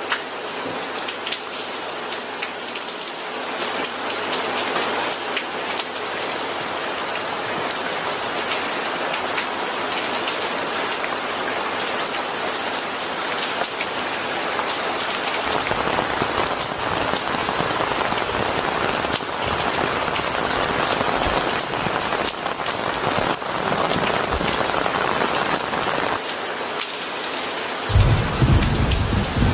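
Steady rain falling, with a low rumble of thunder coming in about halfway through and a louder roll of thunder near the end.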